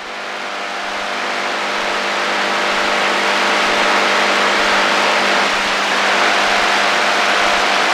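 AM radio static on the HF shortwave band: a steady hiss with faint steady humming tones underneath, swelling up over the first few seconds and then holding level.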